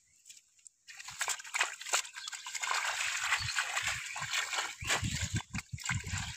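Hands slapping and splashing in ankle-deep water over grass, grabbing at fish. It starts about a second in as a run of quick, irregular splashes and sloshes.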